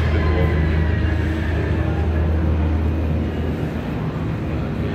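A steady, loud, low rumbling hum under a noisy background din.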